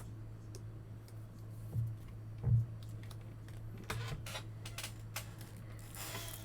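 Trading cards and plastic card holders being handled on a table: scattered light clicks and taps, with a short rustling swish near the end, over a steady low hum.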